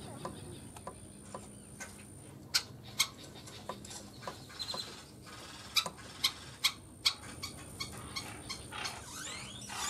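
Wild birds around a feeder: scattered sharp, clicky call notes, the loudest a handful in the middle, over faint chirping.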